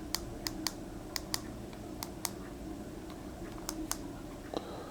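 Plastic buttons on the Bio Bidet BB-2000's handheld remote control clicking as they are pressed: about a dozen short, sharp clicks, mostly in quick pairs, spread over a few seconds.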